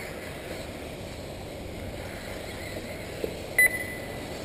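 A single electronic beep about three and a half seconds in, starting with a sharp click and then holding one high tone for well under a second, over a steady outdoor hiss.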